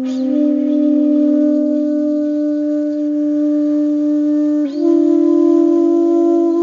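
Background music of a few long, held notes that shift to new pitches about two-thirds of the way through.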